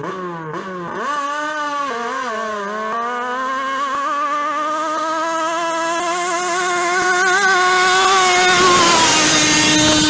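Thai longtail racing boat's engine revving in short blips, then climbing steadily in pitch and growing louder as the boat comes on at full speed. Near the end it peaks with a rush of spray and the engine note drops as the boat passes.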